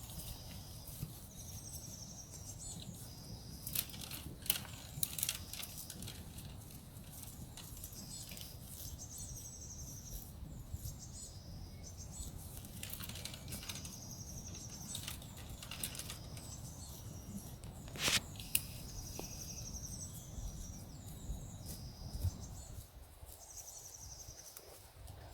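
A bird repeating a short, high, buzzy trill every few seconds, over a steady low rumble, with a few sharp knocks in between.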